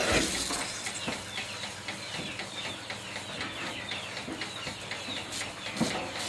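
Goat milking parlour din: many small birds chirping busily over a steady hiss, with a few knocks near the end.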